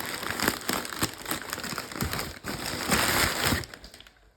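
Packing paper being crumpled and rustled as it is pulled out of a package, a dense crinkling with many small crackles that stops near the end.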